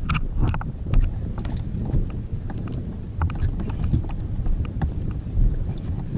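Wind buffeting the camera microphone on a fishing kayak at sea, a dense uneven rumble, with irregular light knocks and clicks from water against the hull and the fish being handled.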